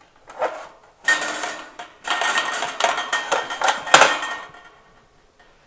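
Metal parts of a BioLite BaseCamp stove rattling and clanking as it is handled and opened, with a sharp clank about four seconds in.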